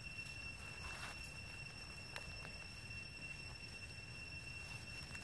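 Quiet outdoor ambience over dry leaf litter: a steady high-pitched whine with a low rumble beneath, and a few faint crackles of dry leaves about one and two seconds in.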